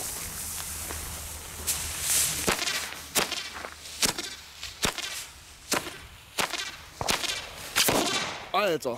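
Tricktrack firework cracker: a fuse hisses at first, then about two and a half seconds in come sharp cracks roughly every three-quarters of a second with a buzzing crackle between them, the loudest blast near the end as the cracker blows apart.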